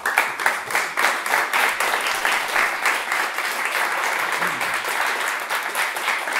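Audience applauding: many people clapping, starting suddenly and continuing steadily.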